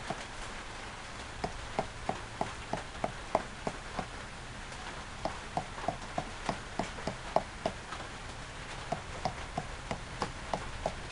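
Runs of light, quick knocks or taps, about three a second, several at a time with short pauses between the runs.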